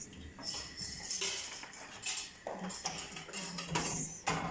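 Metal kitchenware clattering and scraping in several short bursts, with a metal baking tray handled in the oven.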